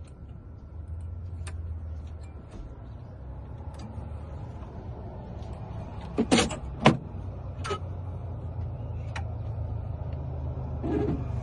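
Key-cutting machine running while it cuts a metal door key: a steady low motor hum, with a few sharp clicks, the loudest two about six and seven seconds in.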